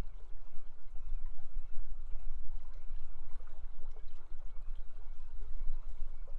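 River water flowing steadily, a continuous rushing with a deep, uneven rumble underneath.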